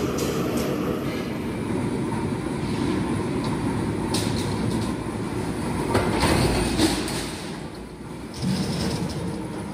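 Factory machinery running with a steady low rumble, rising to its loudest about six to seven seconds in, then briefly dropping away near eight seconds before resuming.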